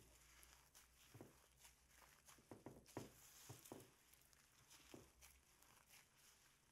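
Slime mixed with foam beads being kneaded and squeezed by hand: faint, irregular squishing with crackly pops from the beads.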